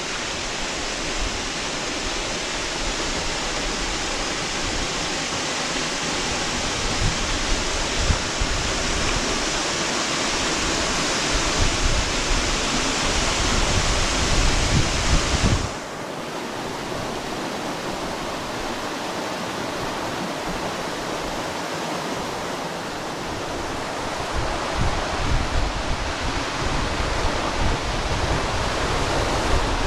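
Waterfall pouring off a rock cliff into the sea, a steady rush of falling water. It drops away suddenly about halfway through, then grows louder and splashier near the end as the kayak noses in under the falls.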